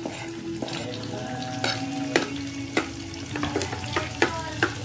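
Chopped vegetables sizzling in hot oil in a frying pan as they are scraped in from a cutting board and stirred. A metal spatula taps and scrapes against the pan several times.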